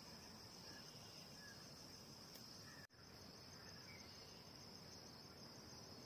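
Faint, steady, high chirring of crickets over quiet background hiss. It cuts out for an instant about halfway through.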